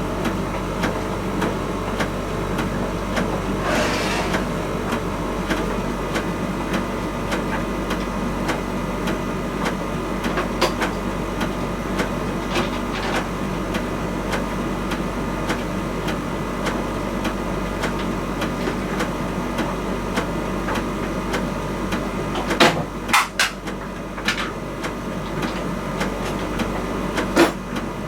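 Miele T1 heat-pump tumble dryer running: a steady mechanical hum with several steady tones, broken by occasional sharp knocks from inside the drum, including a cluster of them about 23 seconds in and another near the end.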